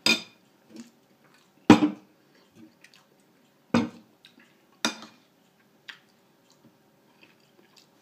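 Metal spoon clinking against a dish while eating: four sharp clinks spread over several seconds, with a few softer taps between them.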